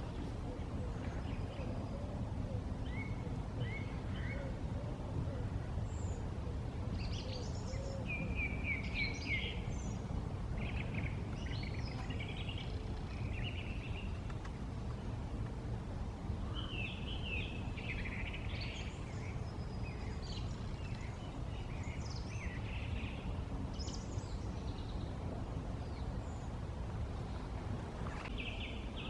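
Woodland birds singing and calling in short phrases throughout, over a steady low rumble of background noise.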